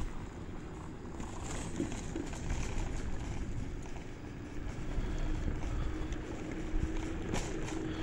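Electric scooter riding along a boardwalk: a steady rumble of the wheels rolling over the surface with wind on the microphone. A faint steady hum comes in about halfway through, and there are a couple of bumps near the end.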